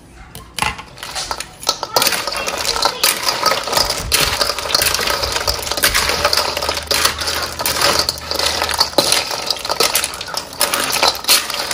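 Dense, irregular clattering and clicking of small hard objects, loud and almost continuous from about two seconds in.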